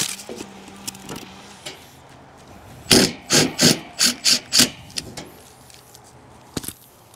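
A quick run of about seven rough scraping strokes, roughly four a second, lasting under two seconds, preceded by a sharp knock at the start.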